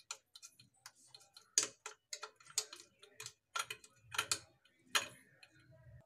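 Steel spoon pressing and scraping grated ginger against a small metal strainer, squeezing out the ginger juice: irregular clicks and scrapes of metal on metal, a few louder than the rest.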